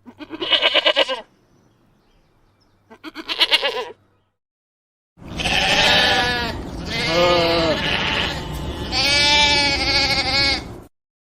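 Sheep bleating: two short, quavering bleats, then after a brief silence three longer bleats with a steady low background noise behind them.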